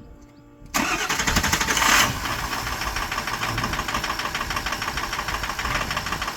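Ford 6.0-litre Power Stroke V8 diesel starting: it catches suddenly about a second in, runs loud for about a second, then settles into a steady idle with an even, regular clatter. It starts quickly and idles smoothly now that a proper oil filter cap is fitted, the wrong cap having starved the high-pressure oil pump and injectors.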